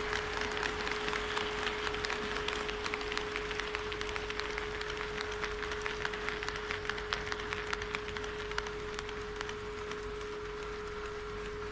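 HO scale model train running on the track, its wheels making a dense rattle of small clicks over the rail joints that thins out and fades over the last few seconds. A steady single hum-like tone sounds underneath throughout.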